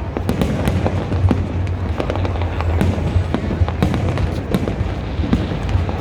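Fireworks going off in rapid succession: many sharp bangs and crackles, several a second, over a continuous low rumble of distant bursts.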